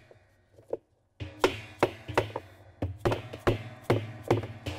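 Plastic-headed hammer tapping on a spanner wrench to drive a washer's tub spanner nut tight: a couple of single taps, then from just over a second in a steady run of about two to three taps a second, each with a short ring.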